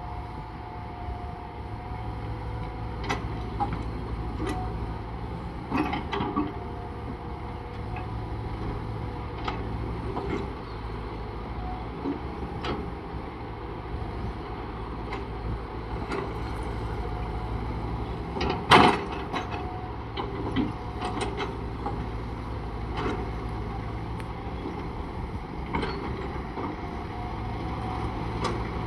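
Steady machinery hum with a low rumble, over scattered knocks and clanks; one loud bang about two-thirds of the way through.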